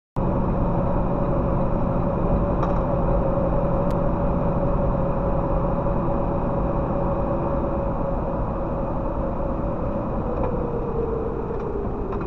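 Steady engine and road noise inside a truck cab at highway speed, starting abruptly; an engine drone holds one pitch, then drops slightly about ten seconds in as the truck eases off.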